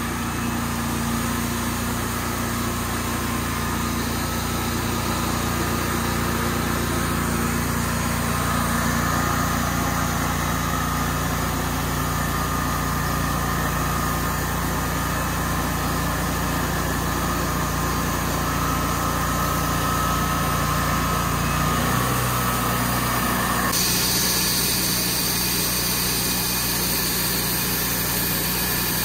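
A small engine running steadily, its tone shifting abruptly about three-quarters of the way through.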